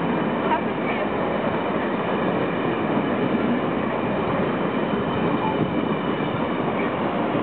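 Amtrak passenger train passing at speed: a steady, loud rush of steel wheels on the rails with no letting up.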